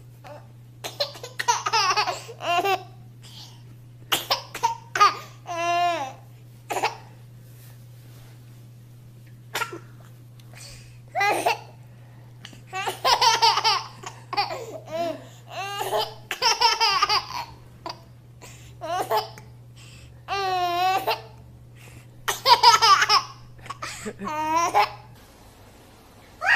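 A baby laughing and babbling in short repeated bursts, some rising and falling into high squeals, over a faint steady low hum.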